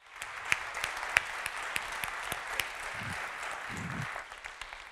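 Audience applauding, with a few sharp single claps standing out. It starts suddenly and thins out near the end.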